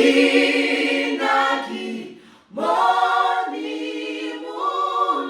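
A group of voices singing a cappella in sustained, held chords, with a short break about two seconds in before the next phrase.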